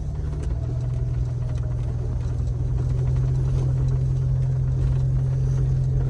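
Jeep engine running steadily as it drives, a constant low drone with a few faint clicks.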